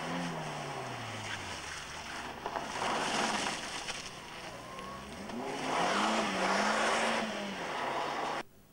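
Small Fiat Uno rally car passing at speed: the engine note falls as it goes by, then the engine revs up and holds high as the car accelerates away, with a rush of tyre and road noise. The sound cuts off suddenly near the end.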